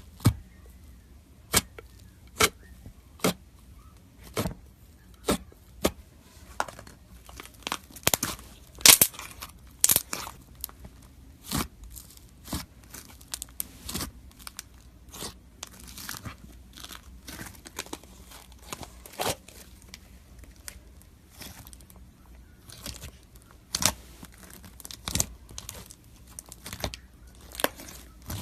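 Slime being squeezed and worked by hand, giving a steady run of sharp pops and crackles, about one or two a second, with a louder cluster about nine seconds in.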